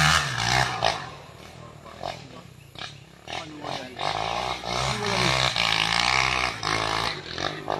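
Dirt bike engine revving on the track. It is loud at the start, falls away after about half a second, then rises again for a few seconds in the middle.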